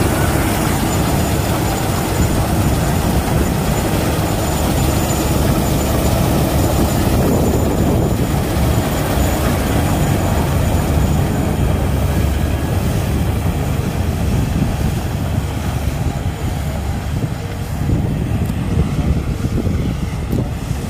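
HIRA combine harvester running while cutting wheat, a loud steady mechanical drone. From about halfway through it grows duller and a little fainter as the machine moves away.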